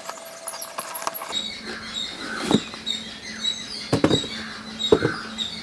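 Packaging being opened by hand: scratchy rustling and crinkling, with a few sharp clicks or taps, about two and a half, four and five seconds in.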